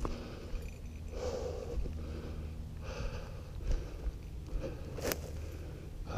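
A person breathing close to the microphone while walking, one breath about every second and a half to two seconds, over a steady low rumble. A single sharp click about five seconds in.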